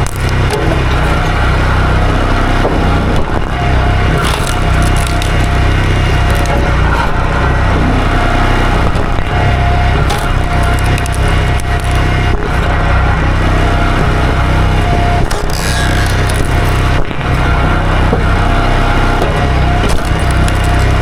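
A small gasoline engine running steadily at constant speed throughout.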